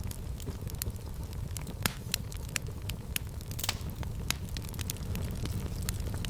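Fireplace fire crackling, with irregular sharp pops over a steady low rumble of the flames; one pop about two seconds in is sharper than the rest.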